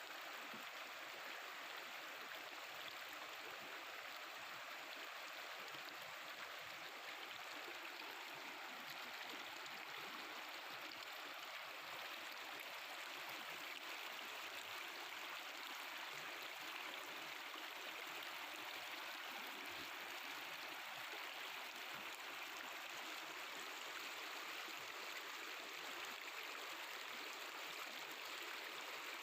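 Mountain river water flowing and babbling steadily over stones.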